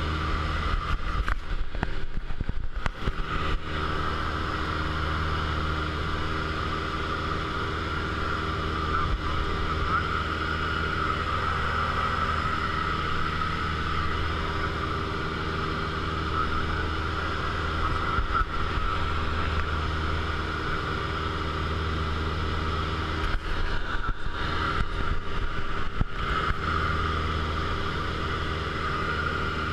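Piston engine and propeller of a high-wing single-engine light aircraft droning steadily in cruise, heard inside the cockpit. Brief crackling comes a couple of seconds in and again near the end.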